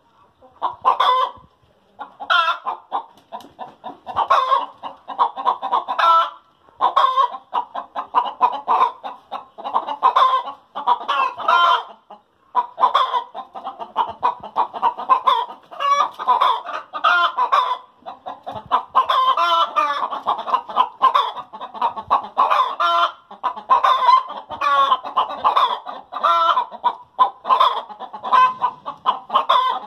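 Domestic hens cackling in quick, repeated calls with a few brief pauses: the egg song hens give after laying.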